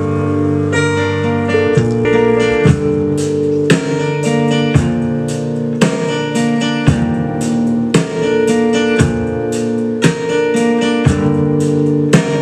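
Folk song playing back, in an emotional acoustic guitar passage. Chords are struck about once a second over ringing, sustained notes.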